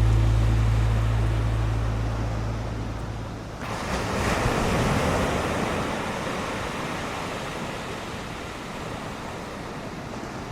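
Background music fading out over the first few seconds, then ocean surf: a wave breaks suddenly about four seconds in and the surf rushes on, slowly dying down.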